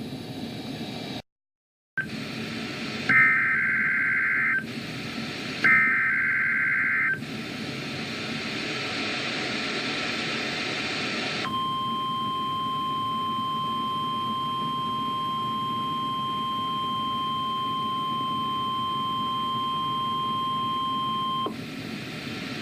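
NOAA Weather Radio broadcast over a hiss of static: two short bursts of SAME digital header tones, then the 1050 Hz warning alarm tone held steady for about ten seconds and cut off, sounded as a test of the weather radio warning alarm during the Required Weekly Test.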